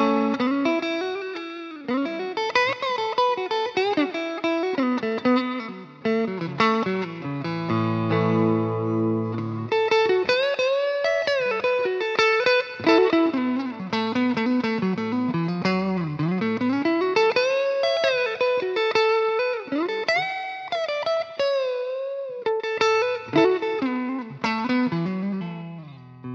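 Electric guitar on a clean amp tone, its newly fitted humbucker coil-split: a lead line of single notes with string bends and vibrato, with a sustained chord about eight seconds in.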